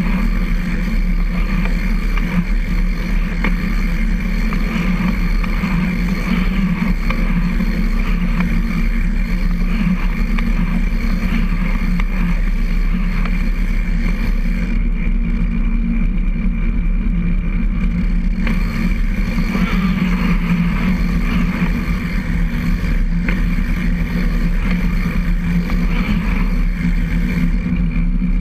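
Recumbent trike rolling steadily along a concrete trail: continuous tyre and drivetrain noise with a low rumble and a steady hum.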